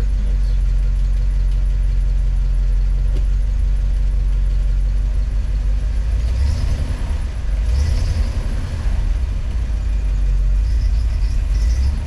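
International Scout engine idling at full operating temperature, a steady low rumble heard inside the cab. About halfway through it is given throttle and runs heavier and less even.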